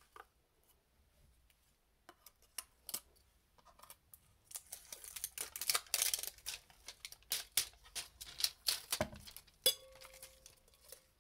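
Duct tape being pulled off the roll, a dense crackling rip with scattered clicks before it, mixed with scissors handling and snipping, and a soft thump near the end.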